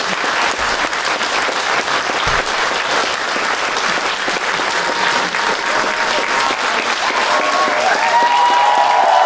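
Audience applauding, a dense steady clatter of many hands clapping. Near the end a few held tones come in over it and grow louder.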